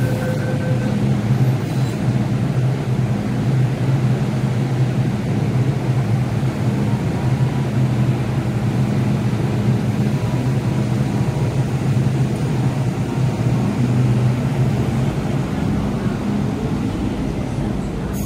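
MTR M-train electric metro train pulling out of the station and running away along the track behind platform screen doors, with a steady low hum and rolling noise. A faint higher whine lasts through the first half.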